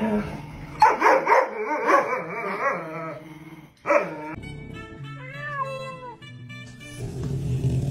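Dachshund barking in quick repeated bursts for about three seconds, with one more bark around four seconds in. Music with a melody follows.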